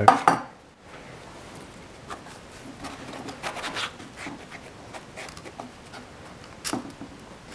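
Handling noises from an STI Guardian steel-frame 9mm pistol being turned over and worked at by hand: light rubbing and scattered small clicks, with one sharper click near the end.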